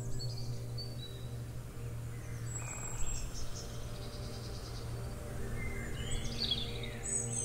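Small songbirds chirping and trilling in short calls over a soft, steady ambient music drone; the birdsong gets busier near the end.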